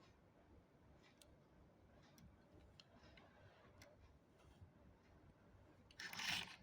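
Faint scattered clicks from handling, then a short rustling burst of about half a second near the end.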